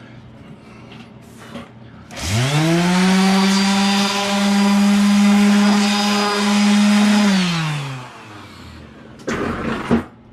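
Electric power-tool motor spinning up fast to a steady high pitch, running for about five seconds, then winding down; a short rushing burst with a sharp knock follows near the end.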